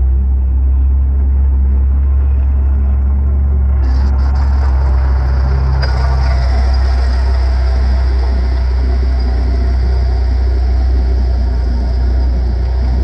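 Takeuchi TL130 compact track loader's diesel engine running steadily, a deep hum, as it drives by on its tracks working a hydraulic Harley power rake through driveway gravel. From about four seconds in, the crunch and rattle of gravel under the rake and tracks joins the engine as the machine passes close, and it carries on as the machine moves away.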